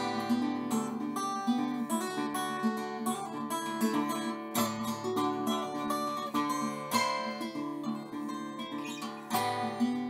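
Background music: acoustic guitar, plucked and strummed.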